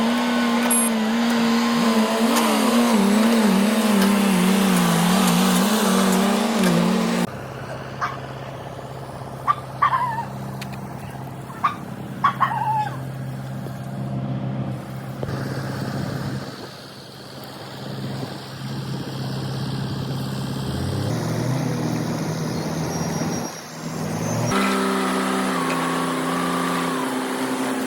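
Engines of heavy construction machinery running steadily, in three segments that change abruptly, with a few sharp knocks about ten to thirteen seconds in.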